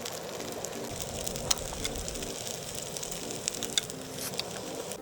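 Food sizzling in a hot frying pan: a steady hiss with scattered sharp pops and crackles, one louder pop about a second and a half in.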